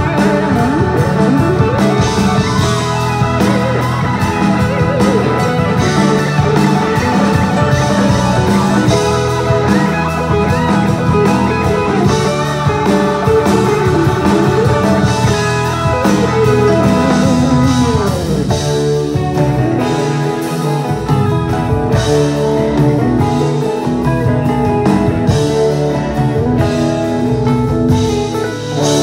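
Live rock band playing: electric guitar lead with bending, sliding notes over bass guitar, keyboard and drum kit. The guitar line glides down about two-thirds of the way through and the band settles into a new passage.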